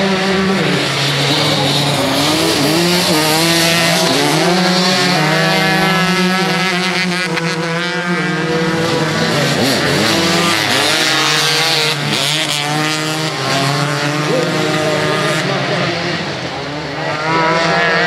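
Several 250 cc crosscart racing engines at high revs, their pitches overlapping and rising and falling again and again as the drivers work the throttle and shift gears through the corners.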